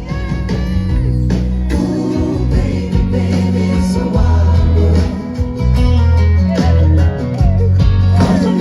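Live band music with singing over it: a strong bass line and guitar under a sung melody.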